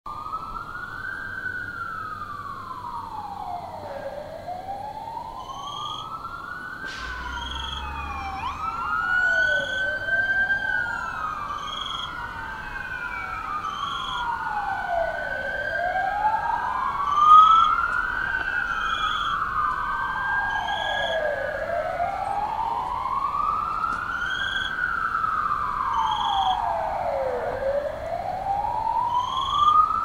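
Ambulance siren on the wail setting, slowly rising and falling about every six seconds, overlapped for a few seconds by a second wail out of step with it. Short high chirps repeat about every second and a quarter, and a sharp knock with a low thud comes about seven seconds in.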